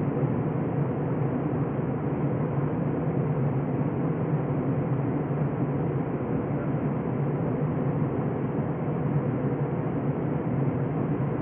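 Steady cabin noise of an Airbus A321 in flight, heard inside the cabin over the wing: the drone of the jet engines and rushing air, with a steady low hum underneath.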